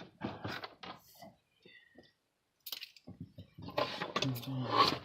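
Handling noise of small parts: a quick string of light clicks and clinks, a few scattered ticks, then a denser clatter near the end.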